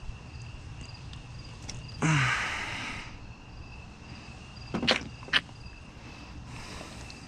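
Spark plug wire being handled and worked loose in the engine bay: a brief scrape about two seconds in, then two sharp clicks about half a second apart.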